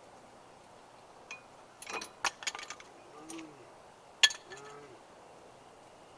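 Metal brake parts and hand tools clinking as they are handled: a quick run of clinks about two seconds in, then one sharp, louder clink a little after four seconds.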